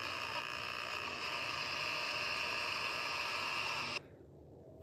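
Spirit box sweeping radio stations: a steady static hiss with a few held tones, which cuts off suddenly about four seconds in.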